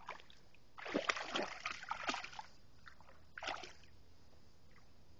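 A dog wading through shallow water, splashing for about a second and a half. A second, shorter splash comes about three and a half seconds in.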